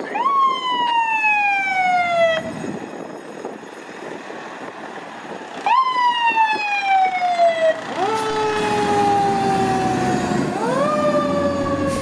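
Fire truck sirens, a Federal Q mechanical siren together with a PA300 electronic siren, sounding in repeated sweeps. Twice the pitch jumps up and slides slowly down over about two seconds, then a lower tone falls slowly and climbs again near the end.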